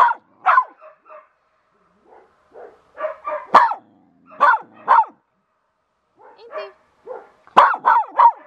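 A medium-sized dog barking in short, sharp single barks, with a quick run of three near the end, barking on its handler's cue.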